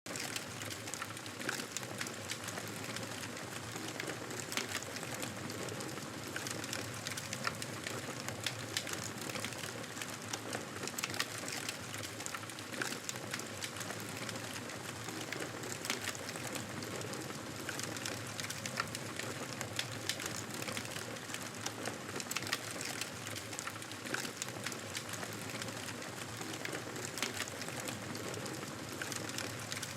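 Wood fire burning, a steady hiss broken by frequent sharp crackles and pops of the burning wood.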